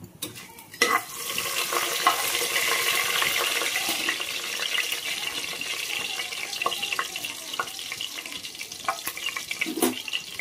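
Whole spices (bay leaves, cinnamon, cloves and cardamom) sizzling in hot oil and ghee in a pressure cooker. The frying starts suddenly about a second in, holds steady with a few small pops, and slowly eases near the end.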